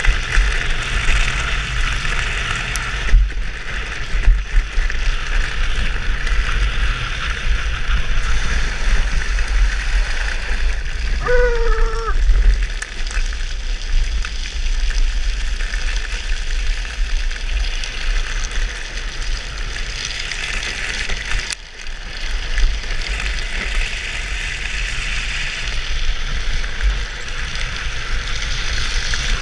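Hard PVC sleeves on a drift trike's rear wheels sliding over asphalt in a steady scraping hiss, over heavy wind rumble on the helmet microphone. About eleven seconds in, a brief wavering high note cuts through.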